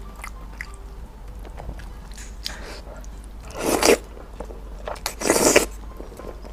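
Stir-fried ramen noodles slurped noisily into the mouth in two long pulls, about three and a half and five seconds in, with soft chewing and small mouth clicks between them.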